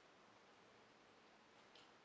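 Near silence: faint room hiss, with a soft click near the end from a small plastic part being handled on the toy.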